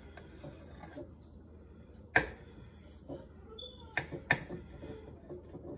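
Kitchen knife cutting through a rolled log of bun dough and striking the tray beneath: three sharp knocks, the loudest about two seconds in and two more close together around four seconds, with a few softer taps between.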